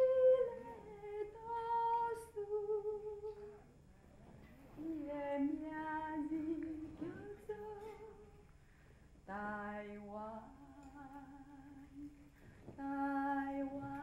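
A slow wordless melody of long held notes with slight slides between them, in short phrases separated by brief pauses, dropping to a lower register about nine seconds in.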